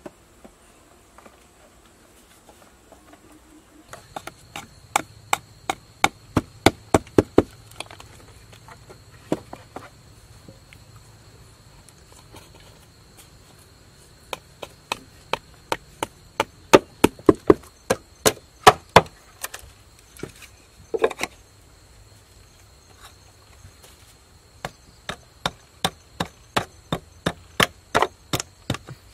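Bamboo pegs hammered into green bamboo sections: runs of sharp wooden knocks, about three a second, with short pauses between the runs, starting about four seconds in.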